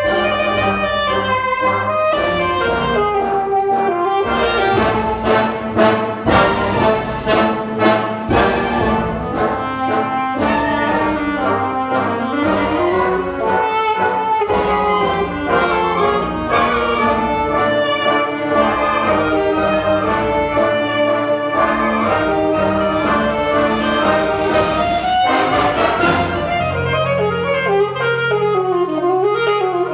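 High school wind band accompanying an alto saxophone soloist, with sharp accented chords through the first half. About 25 seconds in, the band drops to held low notes beneath a winding saxophone line.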